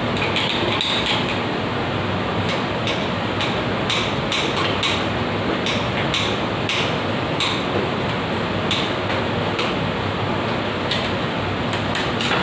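Irregular sharp metal taps of a chisel working out the broken-off thread of a two-way valve stuck inside a wall water-supply fitting, over a steady rushing noise.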